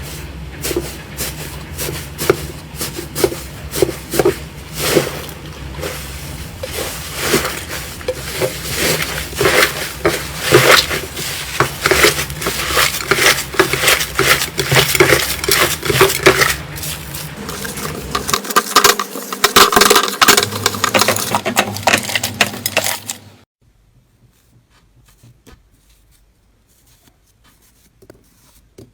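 Slime being squished and pressed by hand: a dense run of sharp crackling and popping clicks, which cuts off suddenly about 23 seconds in, leaving only faint ticks.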